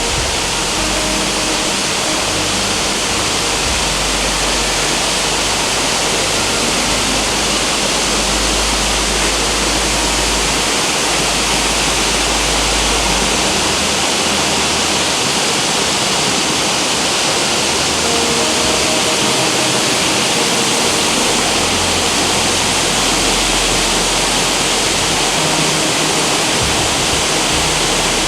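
Mok Fa Waterfall: a loud, steady rush of falling water.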